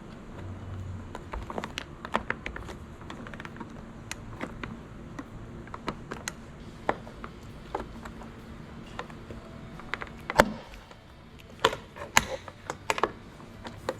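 Flat-blade screwdriver prying at the plastic end caps of factory roof rails: scattered light clicks and taps of metal on plastic, with a sharper, louder click about ten seconds in and a quick run of clicks near the end.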